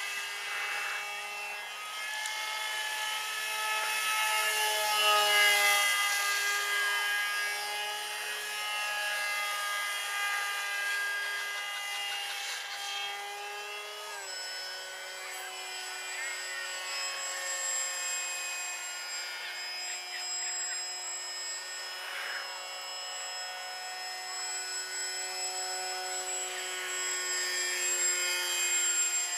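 Electric motor and propeller of a foam RC F-22 model jet whining steadily in flight, with small shifts in pitch as the throttle and passes change. It swells louder about five seconds in, and about halfway through the pitch steps down slightly.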